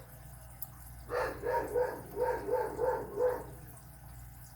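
Dog barking in a rapid run of about eight barks, starting about a second in. It is alert barking, which the owner takes to mean a delivery or someone at the house.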